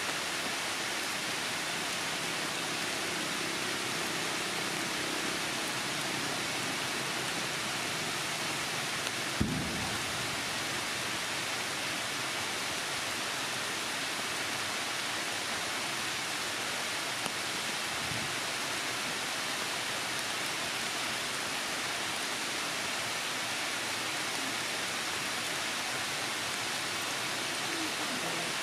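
Heavy, steady rain falling through the forest canopy. One sharp knock comes about a third of the way through and a fainter one later.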